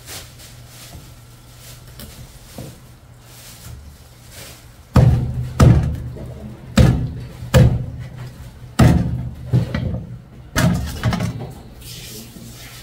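Heavy kitchen knife chopping through the head bones of a large fish onto a cutting board: a series of about eight loud, irregularly spaced thunks starting about five seconds in.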